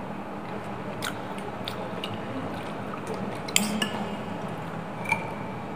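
Wet chewing of instant noodles, with a few sharp clinks of a metal spoon and fork against a glass bowl, the loudest about three and a half seconds in and one ringing briefly near the end.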